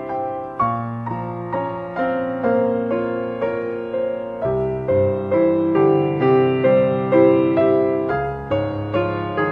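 Piano music: a gentle melody of evenly spaced notes, about two a second, each fading after it is struck, over deeper bass notes that change every few seconds.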